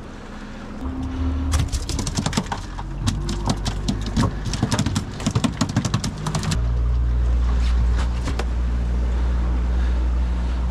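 Motorboat engine running, with a burst of rapid, irregular knocks and clatter over it through the first half. About six and a half seconds in, the sound changes abruptly to a louder, steady low engine drone with no knocking.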